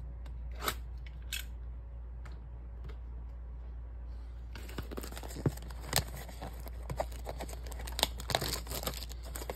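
Clear plastic shrink wrap being torn and peeled off a cardboard trading-card blaster box. A few light taps come first, then from about four and a half seconds in a dense crinkling and crackling of plastic.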